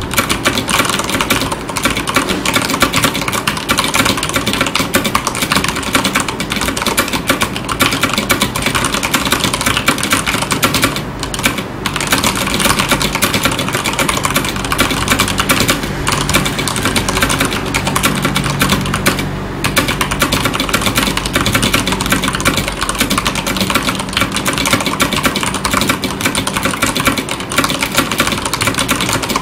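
Continuous fast typing on a FILCO Majestouch 2 Ninja mechanical keyboard with Cherry MX Brown switches and ikbc PBT doubleshot keycaps: a dense stream of keystroke clacks, with a couple of brief pauses.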